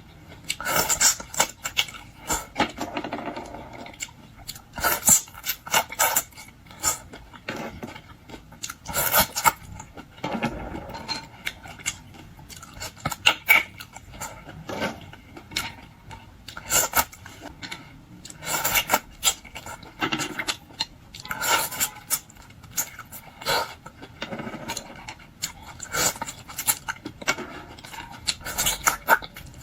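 Close-up eating sounds of shellfish: shells being cracked, picked apart and scraped, with rubbing and occasional clinks in irregular bursts.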